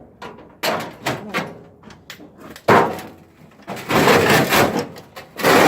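Knocks and clattering of scrap parts and tools being handled and shifted, with a sharp knock about three seconds in and longer rattling stretches after it.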